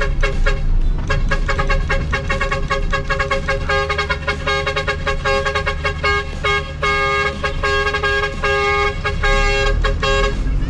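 A truck's 'ong vàng' (yellow bee) musical horn playing a quick tune of short, chopped notes, which stops just before the end. Under it runs the steady low rumble of a truck engine.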